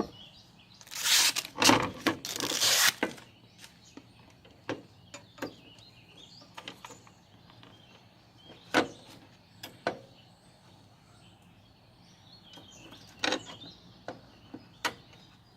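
Hand work on a Jeep Cherokee XJ's headlight bezel: about two seconds of clattering and rustling, then scattered sharp plastic clicks and knocks as parts are handled and fitted.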